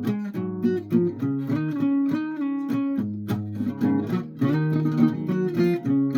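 Guitar being played, strummed chords mixed with plucked notes in a steady rhythm.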